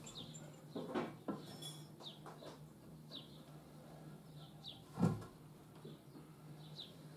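A few light knocks of timber and tools being handled, the loudest about five seconds in, over a faint steady hum. Small bird chirps now and then.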